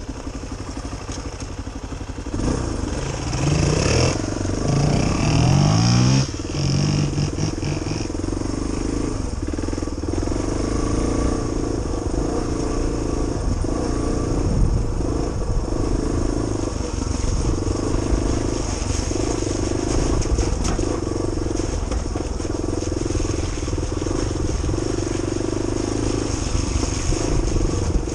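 Suzuki DR350SE single-cylinder four-stroke dirt bike engine. It revs hard a couple of seconds in, the pitch climbing again and again as it pulls away and shifts up. It then runs steadily at riding speed, the note rising and falling as the throttle opens and closes over the rough track.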